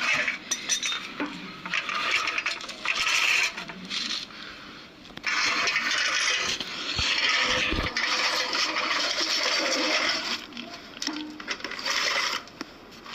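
Metal scraping and clinking as a car's steering rack assembly is worked down and out from under the car, in long stretches of scraping with scattered sharp clinks.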